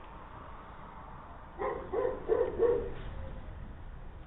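A dog barking: four quick barks in a row, starting about a second and a half in.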